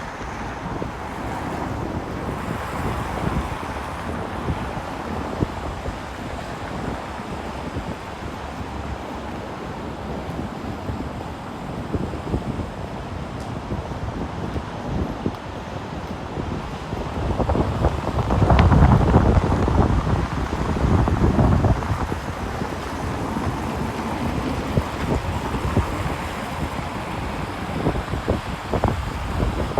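Wind buffeting a phone's microphone, a steady rumbling rush that swells into a louder, deeper stretch a little past halfway.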